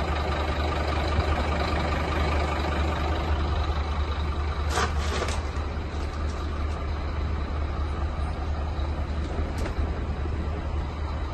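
Scania P230 truck's five-cylinder diesel engine idling steadily, heard from inside the cab. A few short clicks come about five seconds in and again near the end.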